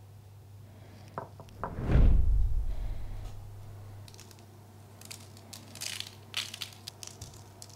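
Pastry brush dabbing egg wash onto soft proofed dough balls with a few soft clicks, and one heavy low thump about two seconds in. From about four seconds on, sesame seeds are sprinkled over the buns in a run of light, rustling patters, over a low steady hum.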